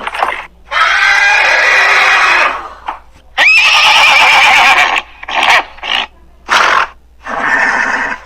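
Horse whinnying: two long, loud, wavering whinnies, the second starting with a sharp upward glide, followed by three shorter calls near the end.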